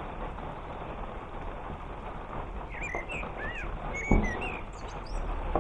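Small birds chirping, a few short calls that rise and fall in pitch about three to four and a half seconds in, over a steady hiss of rain. A single knock sounds about four seconds in.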